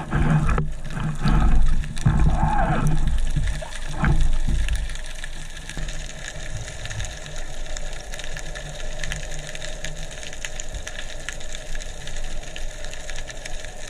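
Underwater sound from a camera held below the surface. For about the first four seconds there is loud, low rumbling water movement close to the microphone. After that comes a steady underwater hiss scattered with fine crackling ticks.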